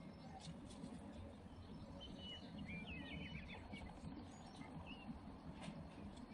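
Faint bird chirps, a quick cluster of short high calls near the middle, over a low steady background rumble.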